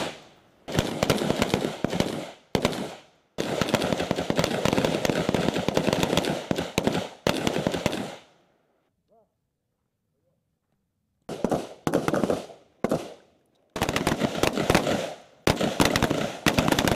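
Gunfire from a firing line of M16A4 service rifles (5.56 mm), many shots in quick, overlapping succession. It breaks off for about three seconds near the middle, then resumes in runs of shots.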